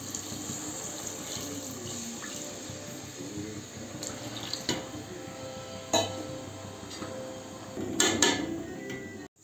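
Water poured in a steady stream into a metal pot of simmering chicken curry, splashing into the sauce. A few sharp clinks of metal against the pot, the loudest about six seconds in and a cluster near the end.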